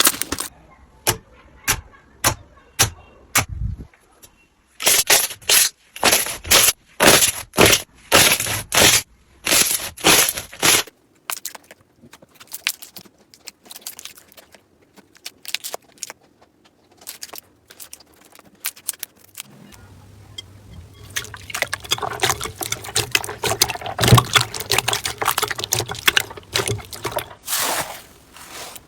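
Slime being pressed, poked and squeezed by hand, making crackling, popping and squelching sounds. Short pops repeat about twice a second in the first ten seconds, then the crackling turns fainter, and from about twenty seconds in it becomes denser and more continuous.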